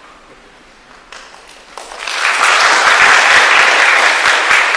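Audience applauding: a few scattered claps about a second in, swelling into full, dense applause about two seconds in.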